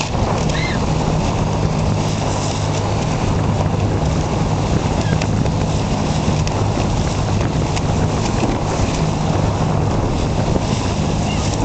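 Steady wind noise on the microphone and rushing water, over the low hum of a boat's engine running along; the hum drops out briefly a few times.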